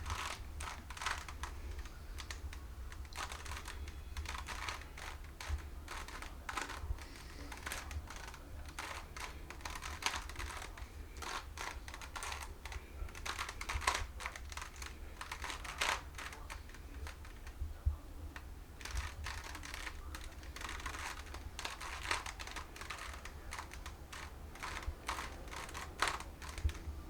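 Rubik's Cube being twisted quickly by hand: a dense, irregular run of small plastic clicks and clacks as its layers turn.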